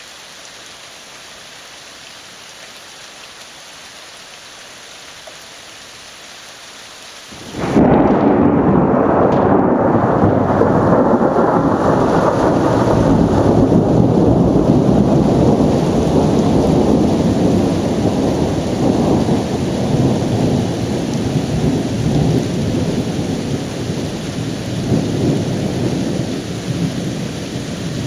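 Thunderstorm at night: a steady hiss of rain, then, about seven and a half seconds in, a sudden loud thunderclap that rolls on as a long rumble over the rain, slowly fading.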